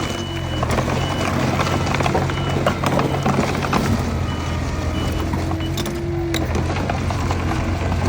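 Heavy diesel earthmoving machinery running steadily, with a reversing alarm giving short high beeps about once a second and scattered clanks and knocks.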